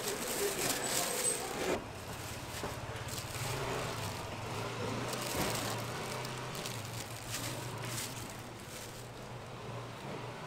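Street background noise: a steady low hum with faint scattered clicks. Busier clattering and rustling in the first two seconds stops abruptly.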